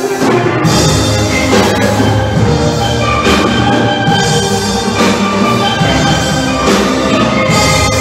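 A steel orchestra playing live: many steelpans ring out a melody and chords over bass pans, with sharp percussion accents every second or two.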